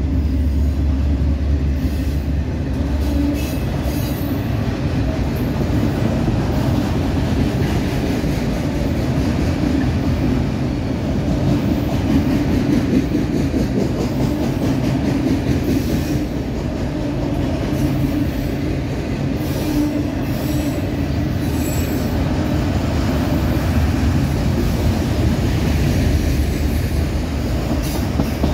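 Freight train of autorack cars (enclosed multilevel car carriers) rolling past close by: a steady, unbroken rumble of steel wheels on the rails.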